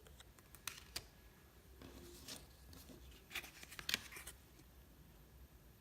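Trading cards being handled and flipped through: faint, scattered clicks and short rustles, busiest in the second half.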